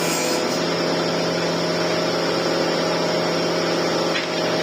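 A motor running steadily: a constant, even hum with a hiss of noise over it, unchanging.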